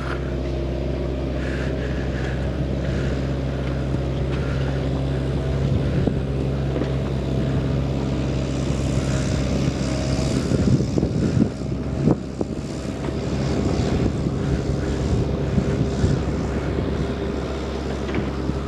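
Electric RC model P-51D Mustang flying overhead: its brushless motor and propeller hum at a steady pitch. Wind buffets the microphone in gusts about halfway through.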